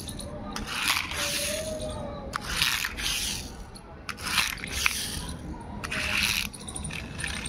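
Small plastic toy race car pushed back and forth over rough concrete, its wheels giving repeated rasping scrapes, each under a second, about five or six times.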